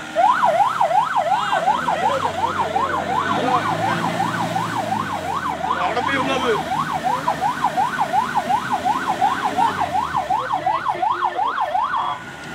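Electronic siren wailing rapidly up and down, about two and a half sweeps a second, cutting off abruptly near the end, over an off-road jeep's engine running underneath.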